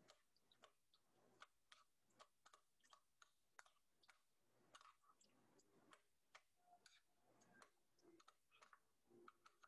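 Faint, irregular clicks of a metal spoon tapping and scraping against a ceramic bowl while mashed avocado is stirred with milk and sugar.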